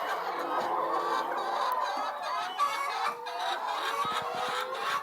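A flock of laying hens clucking, with many birds calling at once and one longer, drawn-out call late on.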